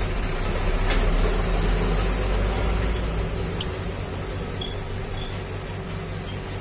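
Steady low hum and rumble of background machinery.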